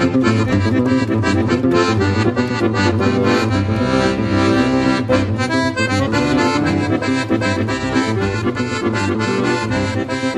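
Background music: an accordion-led instrumental piece with a steady beat.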